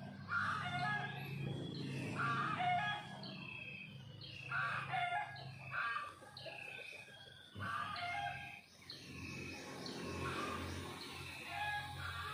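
Chickens calling over and over, with rooster crowing, and small birds chirping among them.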